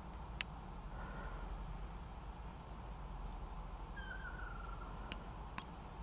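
Ruddy kingfisher (Ryukyu race) giving its trilling call that dips in pitch, one call lasting about a second about four seconds in, with a fainter, shorter one about a second in. A few sharp clicks are heard over a steady low rumble.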